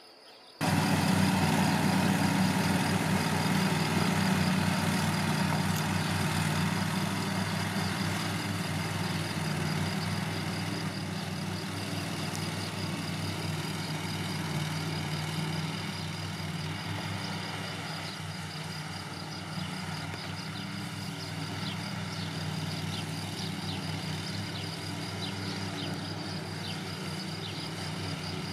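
Petrol engine of a Cub Cadet XZ5 L127 zero-turn ride-on mower running steadily while mowing. It starts abruptly about half a second in and slowly grows quieter as the mower moves away.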